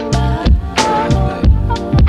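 Background music with a steady drum beat over pitched instrument notes.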